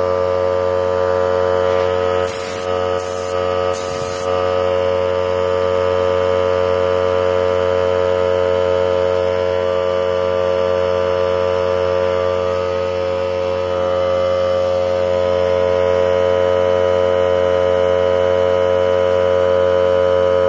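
Hyper Tough 3-gallon oil-free air compressor running, its pump motor giving a loud, steady hum. Three short hisses come about two to four seconds in.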